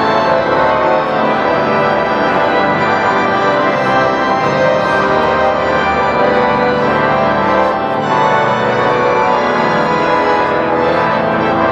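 Cathedral pipe organ playing loud, sustained full chords.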